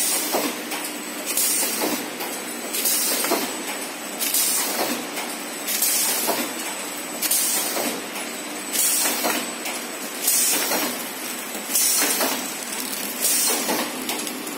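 Horizontal flow wrapping machine running steadily. About every second and a half it gives a knock and a short hiss, the rhythm of the rotary cross-sealing jaws sealing and cutting one pack at about 40 packs a minute.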